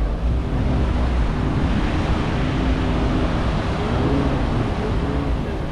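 Wind buffeting the microphone over the steady wash of surf, with a few faint voices in the background.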